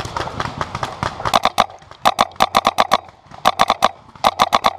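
Paintball markers firing in quick strings of shots. About a second in come four bursts of roughly five or six sharp cracks each, at about ten shots a second.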